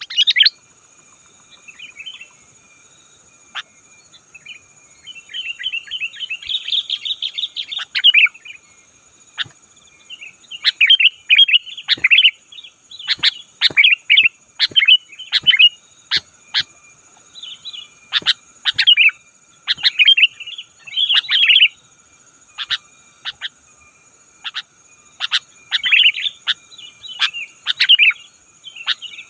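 Sooty-headed bulbul singing in busy runs of short, bright chirping phrases with brief pauses between them.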